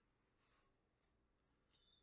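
Near silence: room tone, with two very faint brief ticks.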